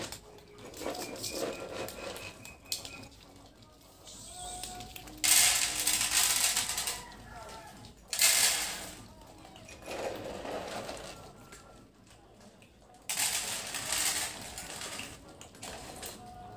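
Dry cat kibble scooped with a mug from a plastic tub and poured out, rattling in four loud bursts with quieter gaps between.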